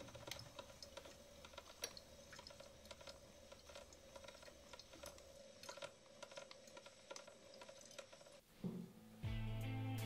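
Faint, irregular light clicks and taps over a quiet steady hum, which cuts off about eight and a half seconds in. Music with a deep held bass note starts near the end.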